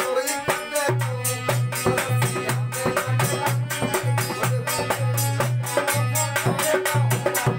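Instrumental passage of a rasiya folk song: a harmonium holding chords over a dholak's quick, steady beat, with the metallic jingle of a chimta.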